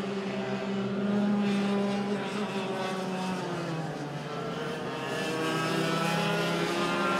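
Several racing karts' two-stroke engines buzzing as the pack laps the circuit. Their pitch drops about three seconds in as they slow for a corner, then climbs again from about five seconds as they accelerate.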